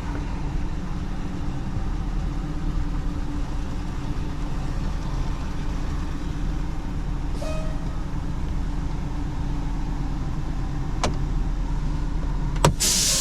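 Flatbed tow truck's engine idling steadily, heard from the cab. Near the end there are a couple of sharp clicks, then a short burst of hissing air.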